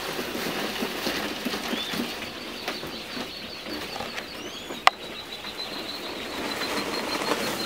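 A crowd of partridge chicks peeping continuously in high, rapid little calls, over the rustle of chicks scurrying and scratching in wood shavings. One sharp click about five seconds in.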